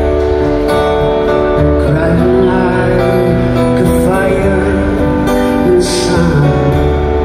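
Live band music: an acoustic guitar strums over held keyboard chords, and a wavering vocal line comes in about two seconds in.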